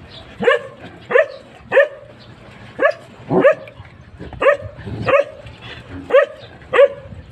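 A dog barking repeatedly: about nine short barks, most of them in pairs.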